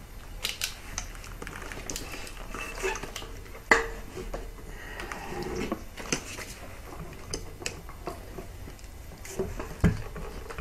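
Clinks, knocks and rustling of a Subaru STI intake manifold and its hoses being worked into place on the engine by hand, with a sharp knock about four seconds in and another near the end.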